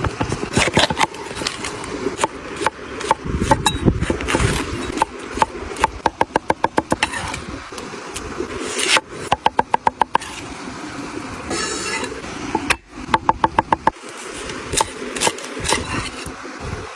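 Kitchen food-prep sounds: several short bursts of rapid, even knocks of a utensil on a hard surface, about eight a second, over a steady noisy background.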